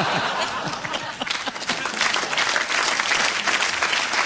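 Studio audience applauding after a joke, the clapping growing denser about a second in.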